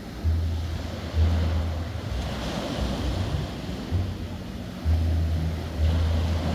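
Gentle surf washing onto a sandy beach, with gusts of sea wind buffeting the microphone in loud low rumbles that start suddenly several times.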